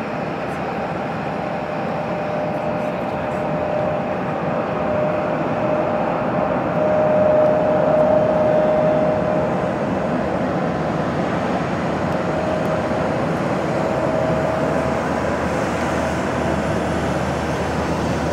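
Taxiing jet airliners' engines running at low taxi power: a steady rush with a faint humming whine that swells for a few seconds midway, as a regional jet passes close by while the MD-11 freighter rolls toward the runway.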